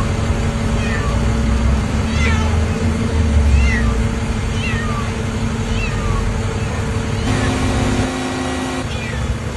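A cat meowing again and again, short high calls about once a second, over the steady running of a vehicle engine.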